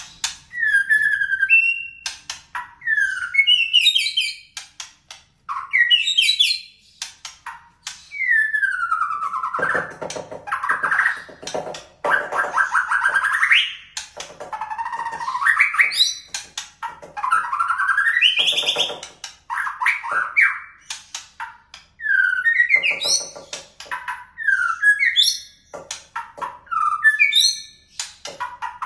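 White-rumped shama singing in quick phrases of clear whistles that slide up and down, mixed with short chirps. The song is filled with canary-like phrases, including buzzy, rattling notes around ten seconds in and again near eighteen seconds.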